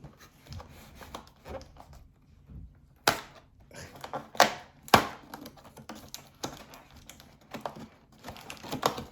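Hard plastic packaging being handled and worked open by hand: irregular clicks and crinkling, with the loudest sharp snaps about three, four and a half, and five seconds in, and a flurry of crackling near the end.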